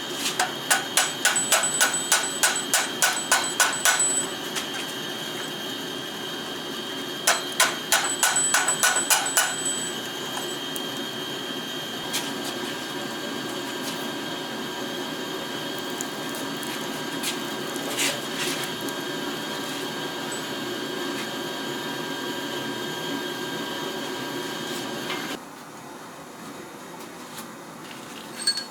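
Hammer blows on an anvil forging a railroad spike. There is a quick run of about five strikes a second for four seconds, a shorter run of about ten strikes a few seconds later, then a few single knocks, with a high ring after the strikes. A steady hum underneath stops suddenly near the end.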